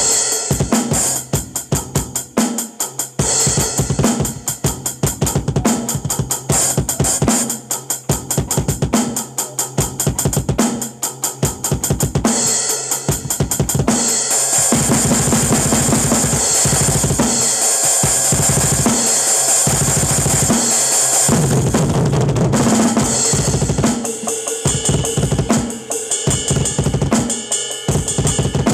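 Acoustic drum kit played in a fast, heavy solo: rapid bass drum strokes with snare hits and cymbals. From about the middle, for some seven seconds, the cymbals ring in a continuous wash over a dense run of strokes.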